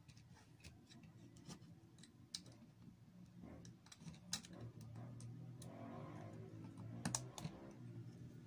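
Scattered small plastic clicks and handling noises as the opened portable CD player's disc mechanism and casing parts are fitted back together, with a faint low hum in the background from about halfway.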